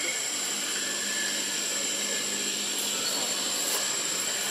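Steady outdoor background hiss with a continuous high-pitched whine and a faint low hum underneath.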